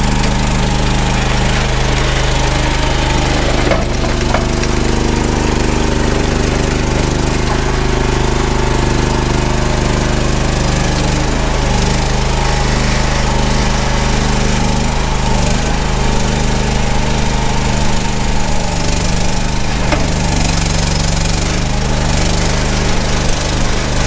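EGN EG360 mini skid steer's engine running steadily under throttle as the tracked machine drives up to and onto the trailer ramps for loading, its pitch dipping and rising a few times as the hydraulics take load.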